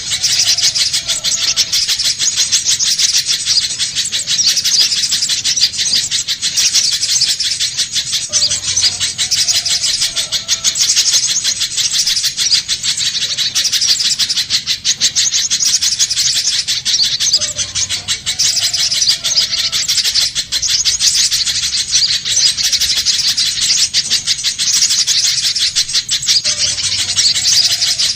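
Spiderhunter (pijantung pisang) call used as a bird lure: a loud, unbroken stream of very rapid, high, sharp chipping notes that swells slightly every few seconds.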